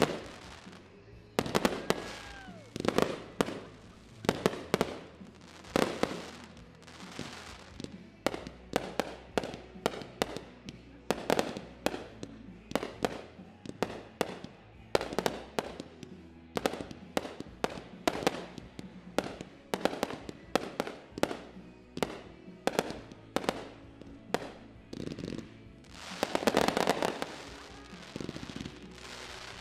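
Aerial fireworks bursting in quick succession: sharp bangs one after another, about one or two a second, thickening into a dense barrage of reports a little before the end.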